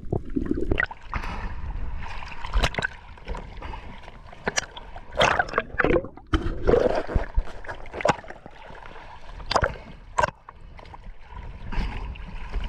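Sea water sloshing and splashing around an action camera held at the surface, with irregular sharp splashes and gurgles as waves wash over it and it dips in and out of the water.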